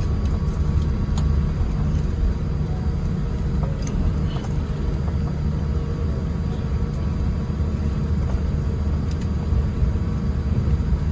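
Steady low rumble of a Boeing 787-10 after landing, heard from inside the cabin. A faint steady hum runs over it, with a few light clicks.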